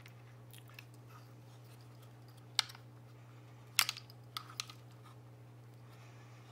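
Small plastic clicks and taps as wire connectors and the plastic housing of an electric ice auger's control box are handled: one sharp click about two and a half seconds in, and a quick cluster of clicks around four seconds in.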